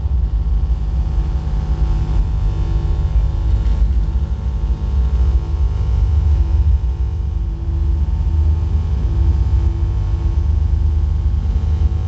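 Electromagnetic field from a coil heated in a running microwave oven, picked up and played through an amplifier: a loud, deep bass drone with steady humming tones above it.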